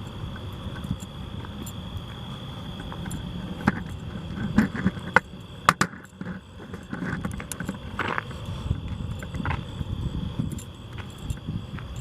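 A run of sharp clicks and clacks, thickest and loudest a few seconds in, over a steady low rustle. A constant high-pitched insect drone runs underneath.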